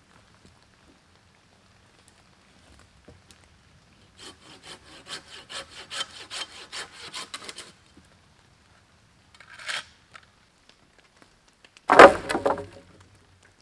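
Hand saw cutting through a green sapling pole in a run of quick, even strokes for about three and a half seconds. A short burst of noise follows, and near the end comes a loud wooden clatter.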